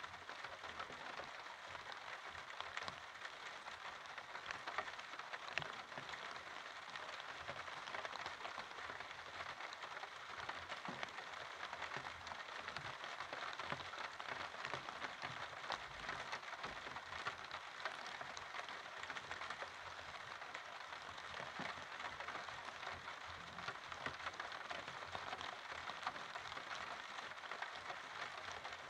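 Steady rain falling: an even patter of drops with small sharp drip ticks scattered through it.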